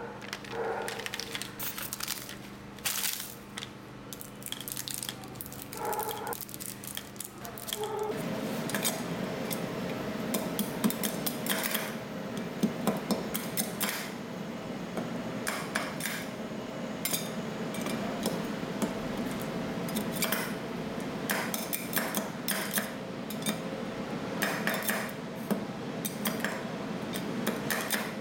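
Metal spatulas clattering, tapping and scraping on the steel cold plate of a rolled ice cream pan as ingredients are chopped and worked. About eight seconds in the sound turns from scattered taps into dense, continuous scraping.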